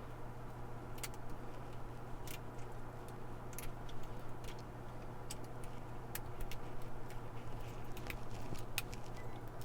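Lock pick and tension tool working the pins in the keyway of a 2-inch (50 mm) Public Storage steel padlock, giving small irregular metallic clicks and ticks over a steady low hum.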